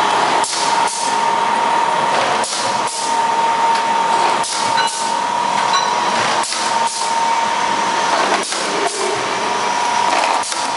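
Vertical powder packaging machine running through its bagging cycle. Its pneumatic jaws and cylinders let off a pair of sharp hissing clacks about every two seconds, over a steady high whine.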